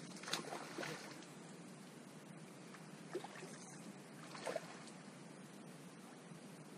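Brief water splashes from a hooked trout thrashing at the surface and a man wading through shallow water with a landing net: two in the first second, then more about three and four and a half seconds in.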